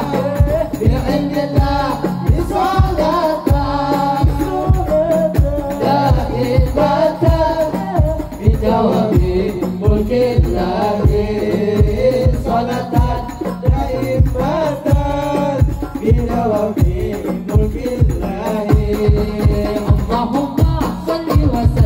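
Male voices singing an Islamic devotional syair over a steady beat of hand-played frame drums and a hand drum.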